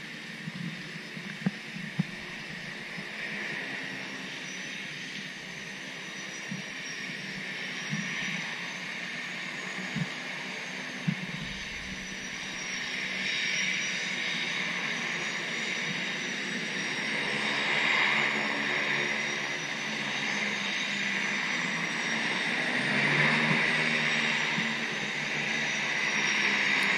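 Seaplane's propeller engines running as it moves on the water, a steady drone that grows louder through the second half, with a high thin whine wavering slowly up and down.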